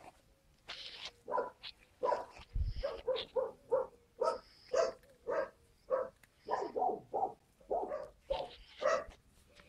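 Skye Terrier puppies yapping in rough play, a quick string of short, high yaps and barks about two a second.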